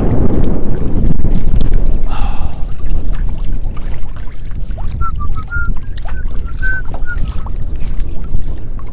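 Wind buffeting the microphone over choppy water slapping and splashing against the side of a small boat. A few short, faint high squeaks come through about halfway in.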